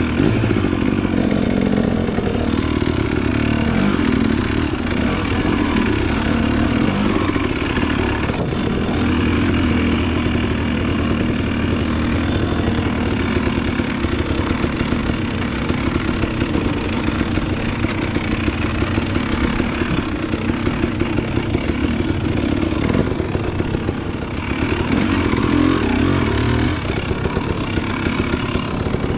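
Dirt bike engine running under load as it is ridden along a trail, the revs rising and falling with the throttle.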